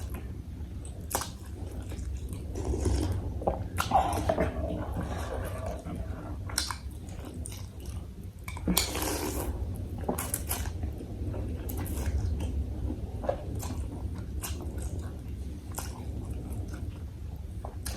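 Close-miked eating of bakso, Indonesian meatball soup: wet chewing and mouth clicks, with a couple of longer noisy smacks or slurps about four and nine seconds in, over a low steady hum.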